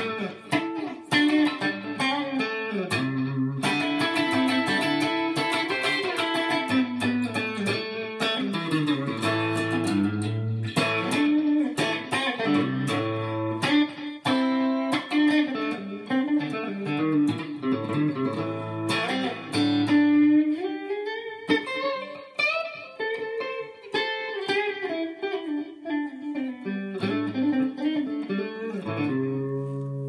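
Stratocaster-style electric guitar with Radioshop '63 single-coil pickups, played clean through a Line 6 Helix set to a Fender Deluxe Reverb amp model with a very low-gain Klon overdrive, light compression and delay. It plays a run of single notes and chords, and moves to softer, longer-ringing chords in the last third.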